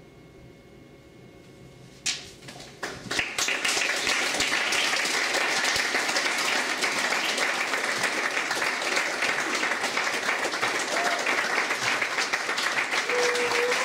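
A quiet pause, then an audience starts applauding: a few first claps about two seconds in, swelling within a second into full, steady applause.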